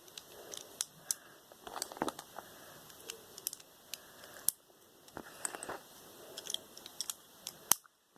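Plastic Lego pieces being handled and pressed together by hand: a scatter of irregular sharp clicks and snaps over light rustling, with one louder snap near the end.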